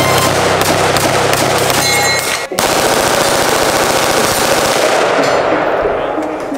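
Rapid gunfire from firearms, the shots following one another in quick succession and running together. There is a short break about two and a half seconds in, and the firing trails off near the end.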